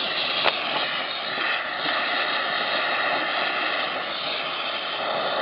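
Oxy-fuel cutting torch flame hissing steadily as it heats the inside of a clogged moped muffler to burn out the oil. There is a short click about half a second in.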